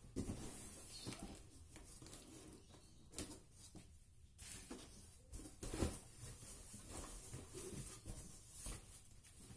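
A cardboard box being handled and its top flaps pulled open: faint scattered scrapes, rustles and knocks of cardboard, with a sharper knock about six seconds in.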